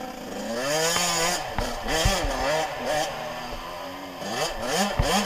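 Suzuki RM 85 two-stroke single-cylinder dirt bike engine revving up and down while being ridden, its pitch rising and falling repeatedly with the throttle, with a few low thumps on the onboard microphone.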